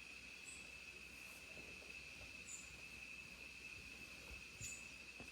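Faint, steady, high-pitched insect trill, with three short, very high chirps about two seconds apart.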